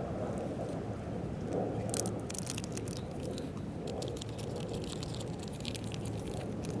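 Steady wind rumble, with a run of crisp crackling, rustling clicks from about two seconds in until near the end.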